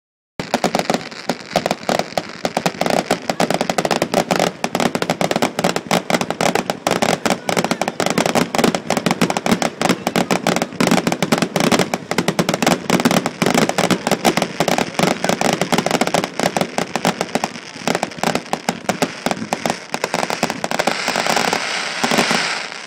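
Fireworks crackling: a dense, continuous stream of rapid sharp pops from shells bursting into crackling stars. The crackle thins into a steadier hiss near the end.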